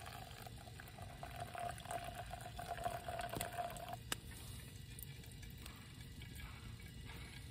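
Water boiling, with a wavering tone that stops about four seconds in, followed by a click, over a faint crackle.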